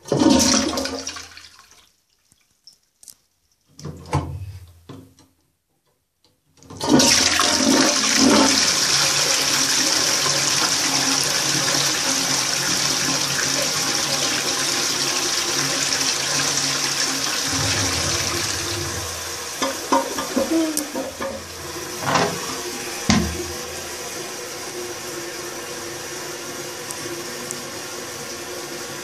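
Lever-operated toilet cistern flushing. A loud sound at the very start fades within about two seconds, then about seven seconds in water rushes loudly into the bowl. After about eighteen seconds the rush eases into a quieter, steady hiss, with a few knocks around twenty to twenty-three seconds.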